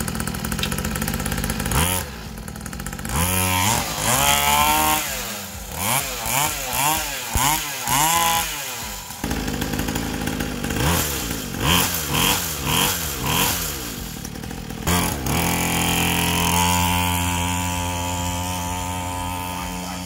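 Small two-stroke engine of a mini dirt bike running and being revved in repeated short blips, the pitch rising and falling with each twist of the throttle. In the last few seconds it settles into a steady run.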